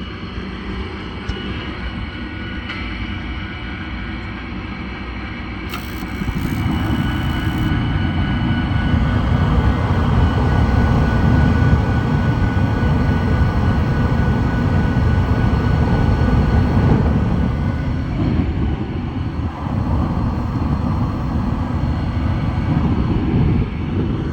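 Gas furnace starting up after a control board replacement. A steady motor hum with a faint whine, then from about six seconds in a much louder, rougher rumble that holds to the end: the unit coming on.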